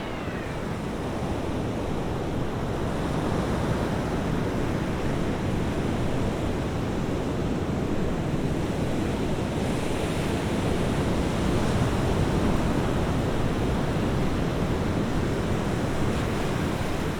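Heavy ocean surf breaking, a steady, deep wash of noise, with wind buffeting the microphone.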